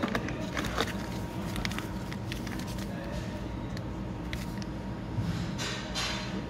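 A plastic-foil sachet of dry yeast crinkling as it is taken off the shelf and turned over in the hand: scattered sharp crackles, with the loudest burst near the end. A steady background hum runs beneath.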